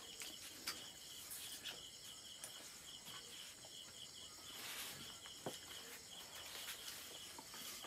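Crickets chirping in short, evenly repeating pulses, with a few faint clicks and taps scattered through.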